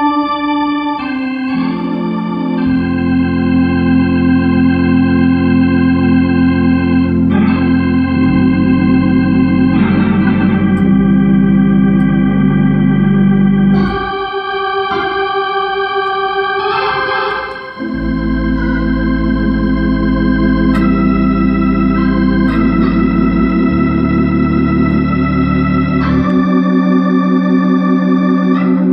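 Hammond organ playing gospel: full chords held for a few seconds at a time and then changing, over a low bass line that drops out twice.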